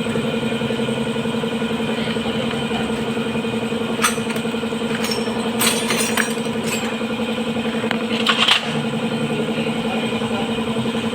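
A steady mechanical hum runs throughout. Over it come a few sharp metallic clicks and clinks of tools and engine parts being handled: one about four seconds in, several around six seconds, and a louder pair near eight and a half seconds.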